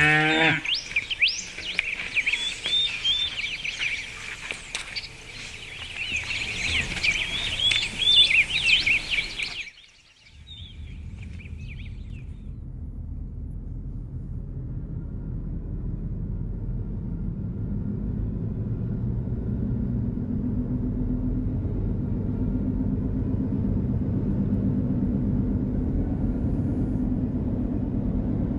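A cow lowing briefly at the start over many small birds chirping. After a cut about ten seconds in, the steady low rumble of a car driving, slowly growing louder.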